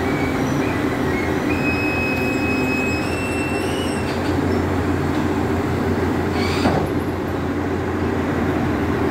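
Pindad PC200 excavator's diesel engine running steadily under load, with thin high squeals between about one and four seconds in and a short scrape near seven seconds.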